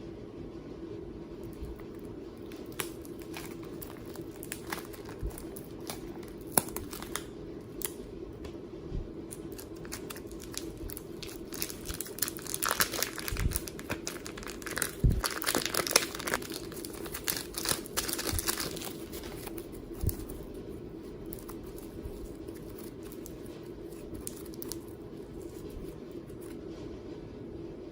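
Slime being squished and stretched, giving crinkly crackling and sharp popping clicks that come thickest in the middle, over a steady low hum.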